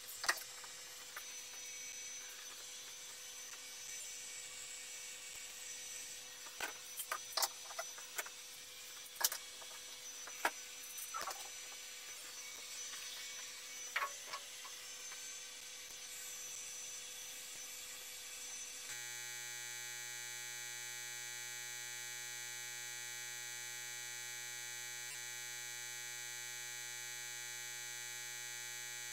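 Metal bar clamps and aluminium bars being set down and tightened on a wooden mould: scattered clicks and knocks over a steady hum. About two-thirds of the way through this gives way abruptly to a steady electrical hum made of many even tones.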